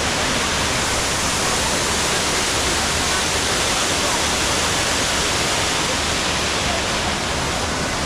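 Waterfall: a steady rush of falling water with no breaks or changes.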